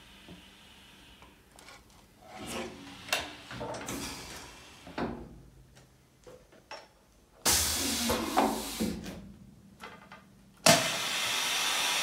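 Pneumatic corner crimper for aluminium window frames: scattered metal knocks and clicks as the frame corner is handled and lifted out, then compressed air hissing from the machine's pneumatic cylinders, a loud burst that fades over a couple of seconds and, near the end, a sudden steady hiss.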